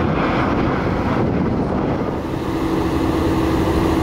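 An Airbus A400M Atlas flying past with its four TP400 turboprop engines and propellers running, a steady rushing noise. About halfway through, a steady hum sets in over it.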